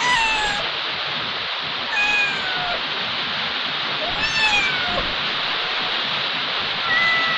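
Young black kitten meowing four times, high thin calls about two seconds apart, most of them falling in pitch, over a steady hiss.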